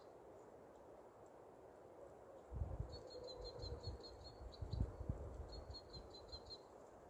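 Crossbills calling: two quick runs of short, high chip notes, about eight notes each, the first a few seconds in and the second near the end. Under them comes low rumbling on the microphone, loudest in the middle.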